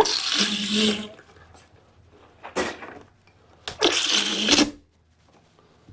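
Alpcour portable cassette toilet being flushed: three separate rushes of water into the bowl, the first and last about a second long, the middle one shorter.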